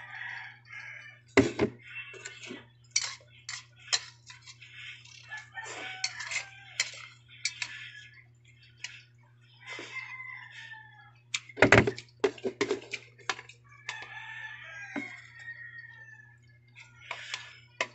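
Eating noises: steel chopsticks clinking and knocking against a plastic container and bowls while noodles are slurped, with two sharp knocks, about one and a half seconds in and again about twelve seconds in, the loudest sounds. Drawn-out bird calls sound in the background several times.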